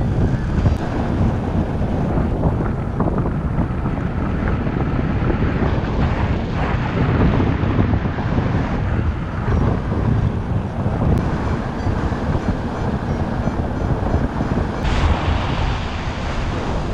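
Wind of paraglider flight buffeting the camera microphone: a steady, dense low noise with no let-up.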